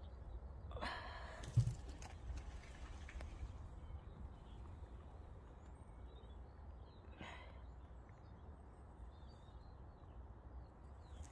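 Faint outdoor background with a steady low rumble, a short rustle about a second in followed by a soft thump, and another short rustle about seven seconds in.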